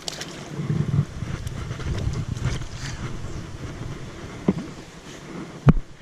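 Wind rumbling on an action camera's microphone over the rush of creek water, uneven and strongest in the middle seconds, with a sharp knock about a second before the end.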